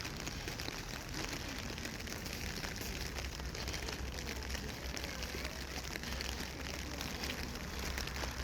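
Steady rain falling, a dense patter of drops over an even hiss, with a steady low rumble underneath.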